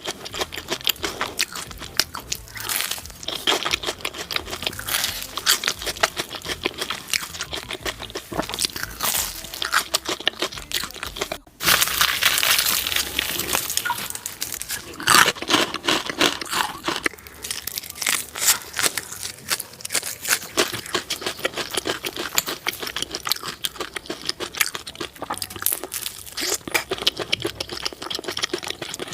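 Close-miked eating of crunchy food: loud, rapid crunching bites and chewing, with some tearing, with one very brief break about eleven seconds in.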